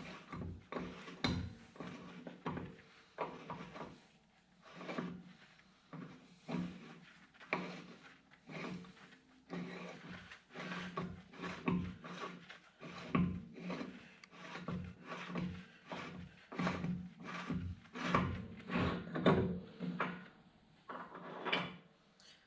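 Repeated rubbing and scraping strokes, irregular, one or two a second, from hand work on a heavy truck's rear wheel hub while getting at the bearings, over a steady low hum.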